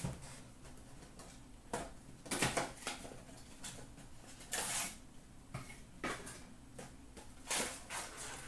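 Cardboard blaster box of hockey cards handled and its top flap pried open: a few separate short rustles and scrapes of cardboard, the loudest about halfway through.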